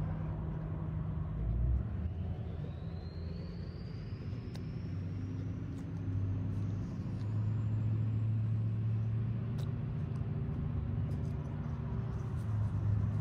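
A steady low mechanical hum, as of a motor running, with a faint high whine that rises slowly in pitch over several seconds in the first half.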